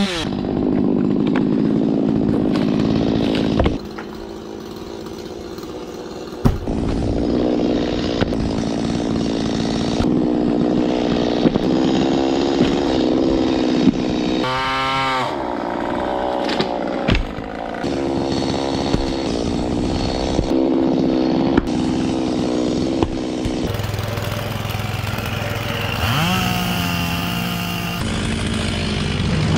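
Chainsaw engine running at high speed while cutting, heard in a series of short clips that switch abruptly. A couple of times the engine revs up and drops back.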